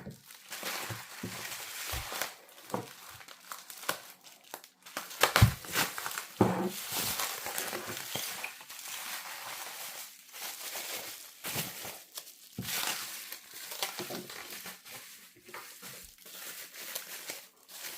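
Plastic packaging wrap being handled and unwrapped, crinkling and rustling on and off, with a few light knocks of parts being set down.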